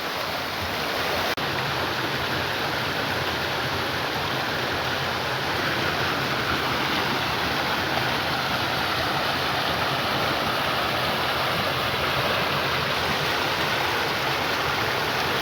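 Creek water rushing steadily over small tiered cascades into a pool at the foot of a waterfall.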